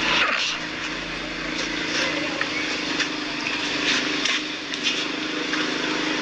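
A motor running steadily with a low, even hum over a hiss, with a few short clicks.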